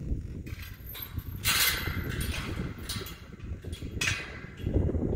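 Wind rumbling on the microphone, with a few short metallic rattles and scrapes as a ranch gate's chain latch is worked from horseback.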